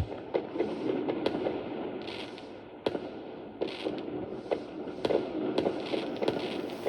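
Fireworks going off: sharp bangs every second or so, with crackling bursts between them over a low rumble.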